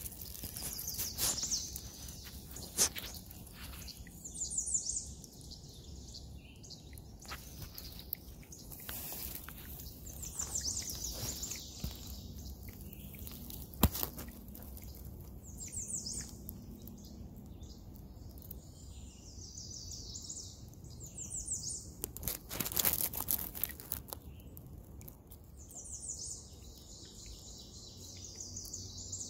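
Songbirds singing: short, high, trilled phrases come every couple of seconds. A few sharp clicks and a brief burst of rustling noise fall about three-quarters of the way through.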